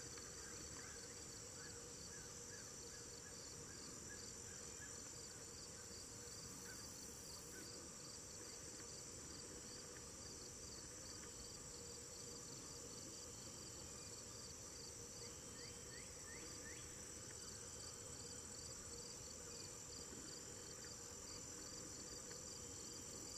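Faint chorus of night insects: a steady high-pitched trill, with crickets chirping evenly a few times a second.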